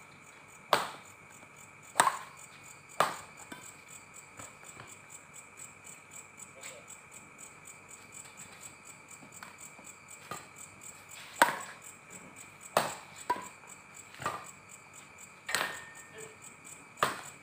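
Badminton rackets hitting a shuttlecock in a rally: sharp pops about a second apart, three in the first few seconds, then a pause of several seconds and five more in the second half. Behind them runs the steady high chirring of night insects.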